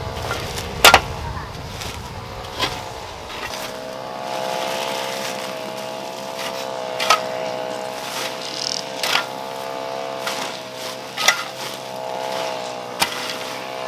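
Sharp knocks every second or two, like hard objects struck together, over a steady pitched hum that sets in about three and a half seconds in.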